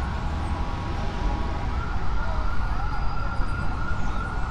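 A siren sounding one steady high tone over the rumble of city street traffic.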